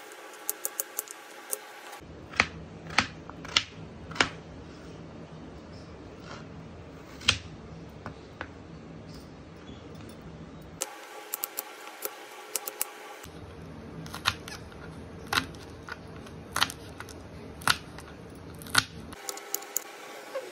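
Kitchen knife slicing potatoes and green chillies on a plastic cutting board: irregular sharp knocks as the blade strikes the board, over a steady low background.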